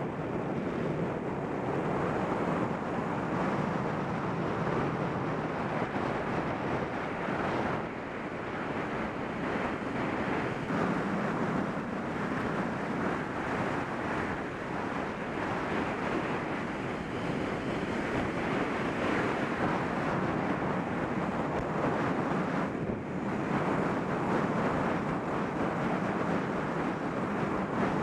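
Steady rush of wind buffeting the microphone of a bicycle-mounted camera during a fast downhill descent.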